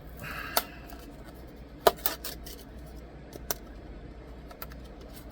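Hands handling the plastic and cardboard packaging of a screen protector kit: a brief rustle near the start, then a few sharp clicks and taps, the loudest about two seconds in.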